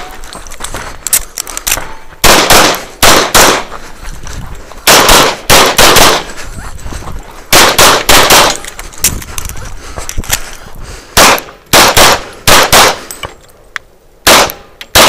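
Handgun shots fired in quick strings of three or four, with pauses of one to two seconds between strings.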